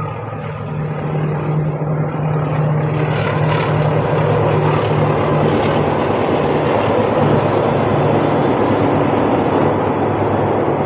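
Diesel locomotive hauling a passenger train: a steady, low engine drone that grows louder over the first few seconds as the train approaches, then holds, with the rolling noise of the carriages crossing a steel truss bridge.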